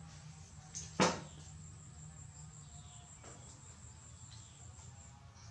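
A steady high-pitched insect chirring that stops shortly before the end, with one sharp knock about a second in and a fainter knock later.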